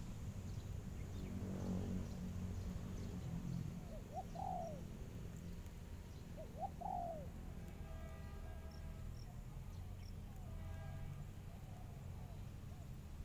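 Spotted doves cooing: two call phrases about four and seven seconds in, then more cooing for a few seconds after, over a steady low hum.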